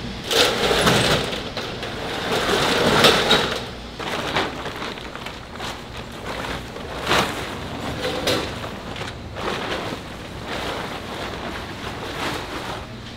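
Irregular clattering and knocks over a steady background noise, busiest and loudest in the first few seconds.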